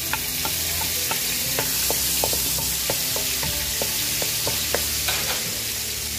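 Minced garlic and ginger sizzling in hot cooking oil in a wok, stirred with a wooden spatula that taps and scrapes against the pan many times.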